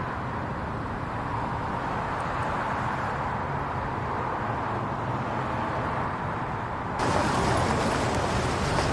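Steady city street traffic: a hum of car engines and road noise. About seven seconds in it switches abruptly to a louder street ambience with more hiss.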